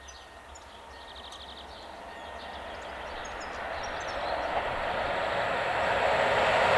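Czech Railways electric locomotive hauling passenger coaches approaching along the line, its rolling rail noise growing steadily louder as it nears. Birds chirp in the first few seconds.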